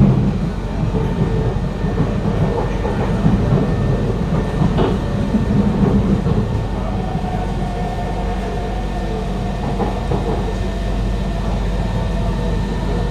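Running noise inside a Kawasaki Heavy Industries C151 metro car with GTO-VVVF traction equipment: a steady rumble of wheels on rail with some clattering, and a faint steady whine above it.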